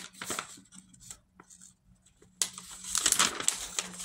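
Packaging crinkling and rustling as it is handled, in irregular bursts, loudest from about two and a half seconds in.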